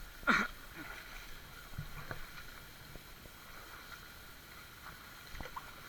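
River water running, with a short voice call just after the start and a few small knocks later on.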